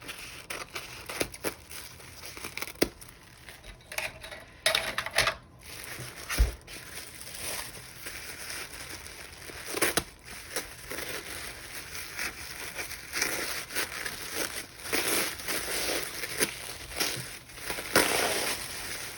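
Wrapping paper crinkling and crackling as it is carefully peeled and torn away from a wrapped package, with a few sharp taps and one dull thump.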